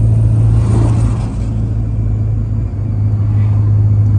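Car running with steady engine and road noise: a constant low drone with a hum underneath.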